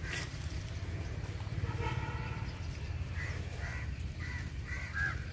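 Crows cawing: one longer call about two seconds in, then a run of short caws, over a low steady rumble.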